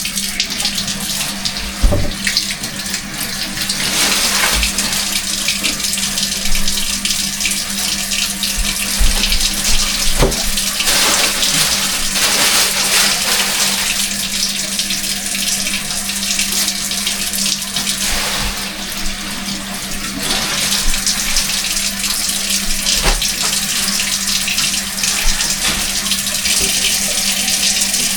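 Kitchen faucet running steadily into a sink, with a few short knocks of items being handled in the sink.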